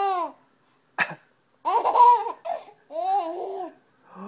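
A baby laughing in several short, high-pitched bursts, with a brief sharp catch of breath about a second in.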